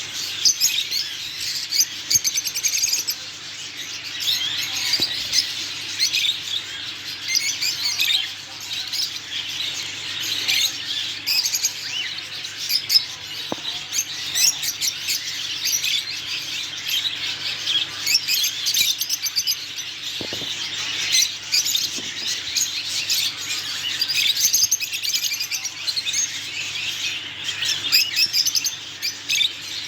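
Many caged pet birds chirping and calling at once, a dense, continuous chorus of short high chirps.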